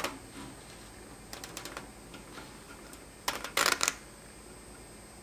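Large scissors snipping through fine, soft copper wire mesh (16 mesh): a series of crisp clicking cuts, with the loudest burst about three and a half seconds in.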